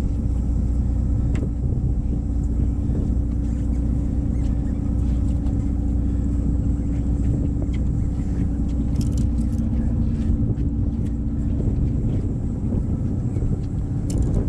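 Boat's engine running steadily: a low drone with a constant hum.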